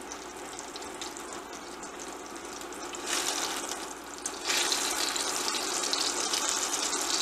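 Slices of Spam sizzling in hot oil in a stainless steel frying pan. The sizzle gets louder about three seconds in and again a little after four seconds, as tongs move the slices around in the pan.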